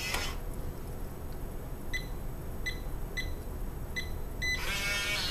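Keypad of a Morning Industry PKF electronic deadbolt beeping as a code is keyed in: five short, high beeps at slightly uneven intervals, from about two seconds in.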